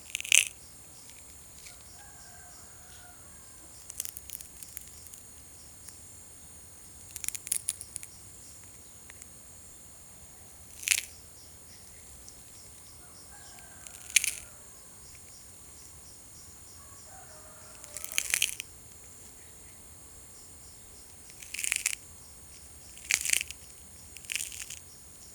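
Foley of an egg hatching: eggshell cracking in short, sharp cracks and crunchy clusters every few seconds. Faint high chirps come between some of the cracks.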